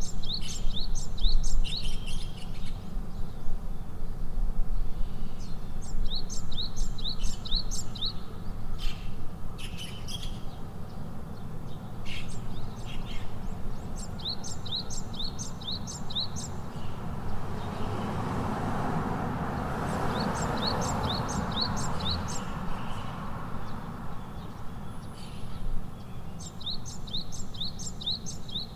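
A bird repeating a short song of five or six quick, high chirps, about every six or seven seconds, over a steady low rumble of background noise. A rushing noise swells and fades about two-thirds of the way through.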